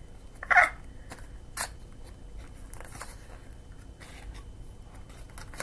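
Cardboard perfume box being opened by hand, its end flap pulled open: scraping and rustling of card with a few sharp clicks, the loudest about half a second in.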